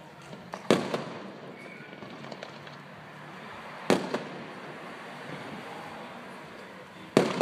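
Aerial fireworks bursting: three loud bangs about three seconds apart, with smaller pops and crackles in between.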